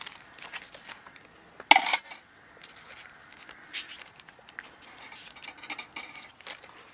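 Metal spoon clinking against a stainless steel cup about two seconds in, followed by a few light taps and rustles of hands handling pastry on baking paper.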